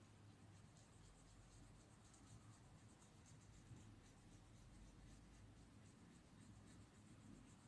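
Faint scratching of a small paintbrush working linseed oil into a bare wooden board, in quick repeated strokes over a low steady hum.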